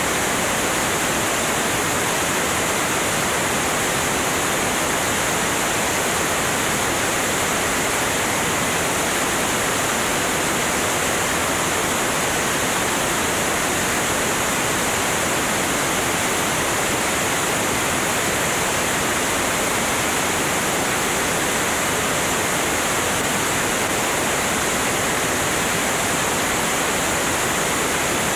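Steady, loud rush of wind over a camera microphone mounted outside, under the wing of a Cessna 205 at cruise speed.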